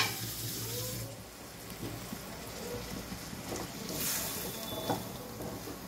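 Potato and pointed gourd curry gravy in a kadai, with water just added, sizzling and bubbling softly. A wooden spatula stirs through it about four seconds in. There is a sharp click right at the start.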